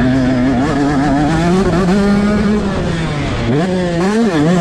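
Motocross bike engine running hard with the throttle worked, its pitch wavering and climbing, then dropping and rising sharply about twice near the end.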